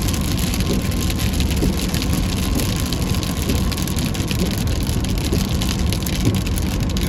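Heavy rain falling steadily, with many small drop impacts ticking through it.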